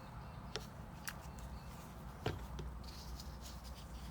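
A few faint, sharp clicks and taps of small carburettor parts being handled as the float and its pin come out of a plastic Briggs and Stratton carburettor, over a low steady hum.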